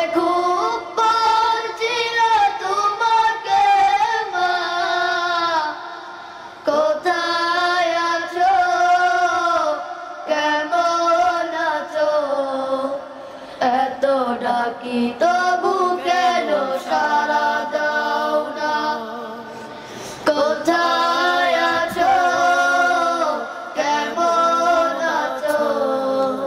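Two boys singing a Bengali Islamic song together, without instruments, in long phrases with short breaks between them.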